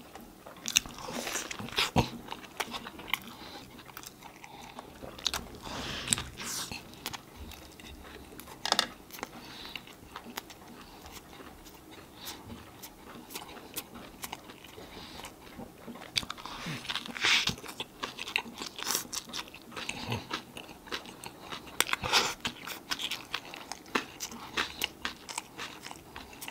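Mouth sounds of a man eating a grilled chicken burger: crunchy bites through bun and lettuce, with wet chewing and sharp lip-smacking clicks in between. A handful of louder, crunchier bites stand out above the steady chewing.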